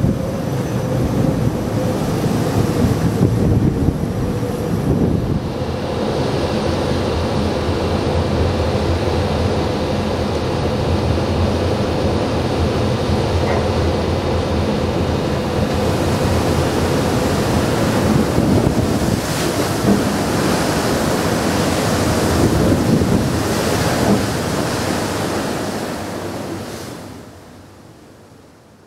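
Wind buffeting the microphone over the rush of sea water along a coastal ferry's hull, with a faint steady hum from the ship's engines underneath; the sound fades out near the end.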